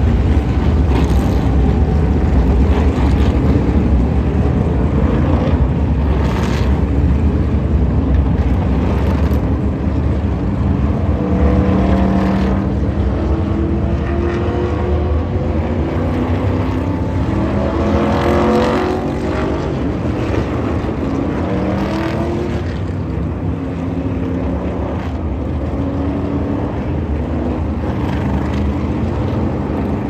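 Several NASCAR Cup Series stock cars' V8 engines running at low speed as the cars roll past one after another. Their engine note rises and falls as each goes by.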